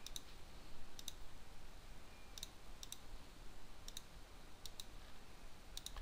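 Computer mouse clicking: about five quick click pairs, a second or more apart, as lines are picked one by one to be trimmed in a CAD program.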